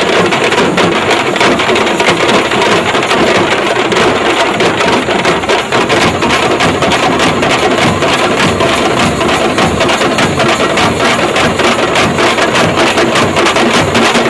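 A band of many drummers beating drums together in a fast, loud, unbroken rhythm, the strokes packed closely into one continuous din.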